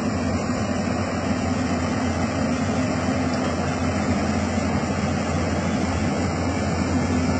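Tracked excavator's diesel engine running steadily, a constant low drone.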